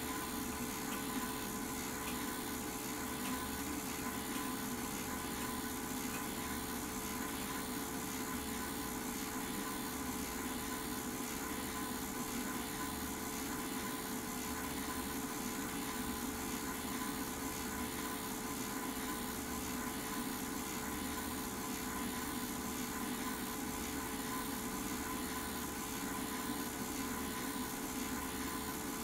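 Home-movie film projector running: a steady mechanical whir with a constant hum tone and hiss that does not change.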